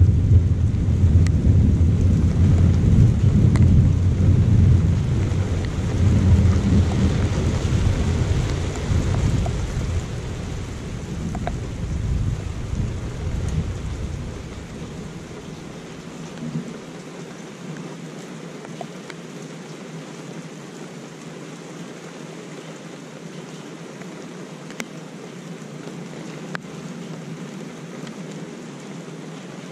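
A long roll of thunder rumbling deep and low, fading away over roughly the first fifteen seconds, over steady rain that keeps falling afterwards. A few sharp ticks stand out near the end.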